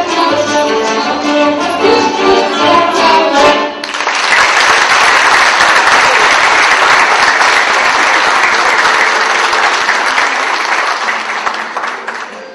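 A woman singing a folk song with accordion accompaniment, the music ending about four seconds in, followed by sustained audience applause that fades near the end.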